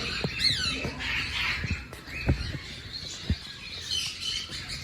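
Small caged birds chirping and chattering, with a quick run of falling chirps about half a second in. A few short, dull knocks sound among the calls.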